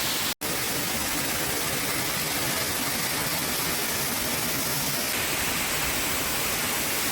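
Waterfall rushing steadily, a dense even roar of falling water. The sound drops out completely for an instant just after the start.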